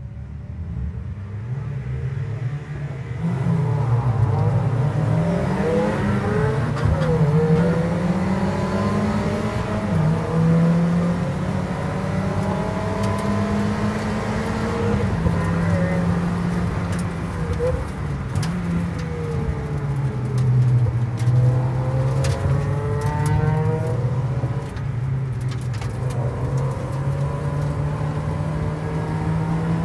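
Mazda MX-5 Mk1 race car's four-cylinder engine heard from inside the cabin, getting louder about three seconds in as the car leaves the grid. The engine note climbs and drops back repeatedly as it pulls up through the gears and through the corners.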